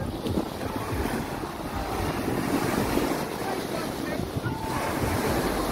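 Wind buffeting the microphone over the steady wash of sea surf, with a murmur of beachgoers' voices.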